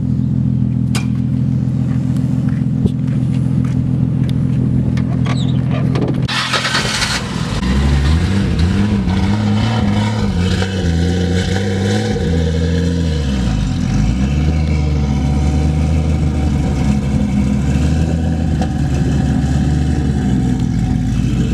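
Exhaust of a turbocharged, engine-swapped Nissan 240SX idling steadily, with a short hiss about six seconds in. From about eight seconds it is revved repeatedly, the pitch rising and falling, with one deeper drop near the middle, before settling back to a steady idle.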